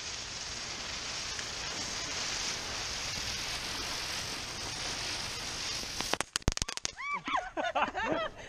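Ground spinner firework hissing steadily as it spins and sprays sparks on the pavement. About six seconds in comes a quick string of sharp cracks, followed by short, shrill, rising-and-falling squeals near the end.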